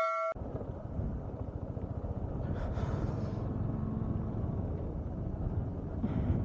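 A Yamaha R15 V2's single-cylinder engine running at low revs as the motorcycle rolls over a rough dirt-and-gravel track, a steady low rumble mixed with road noise. A ringing chime cuts off about a third of a second in.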